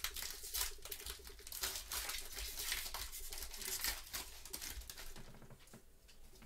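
Foil wrapper of a Panini Contenders basketball card pack being torn open and crinkled in gloved hands, a dense crackling that eases off after about four seconds.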